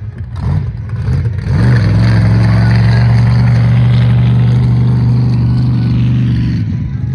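Off-road vehicle engine blipped in a few short revs, then held at a steady high-revving drone for about five seconds before easing off near the end.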